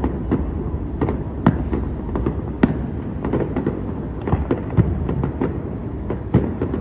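Fireworks going off: many sharp, irregular pops and bangs of varying strength, a few each second, over a steady low rumble.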